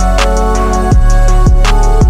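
Background music with a steady drum beat: a kick drum with a falling pitch, hi-hat ticks and held chords.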